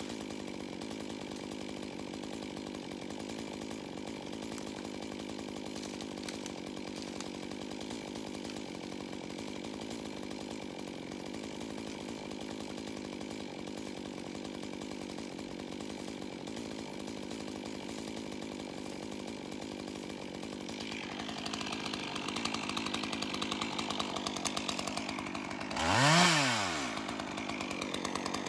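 Chainsaw idling steadily, growing louder about three-quarters of the way through, with one quick rev up and back down near the end.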